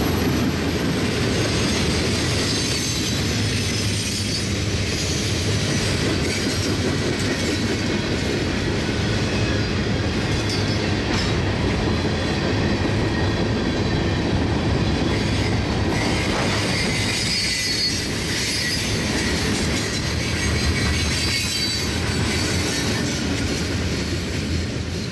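Freight cars of a CSX freight train rolling past: boxcars, covered hoppers and tank cars, their steel wheels running on the rails in a steady rumble with faint thin squeals now and then. The last car passes near the end.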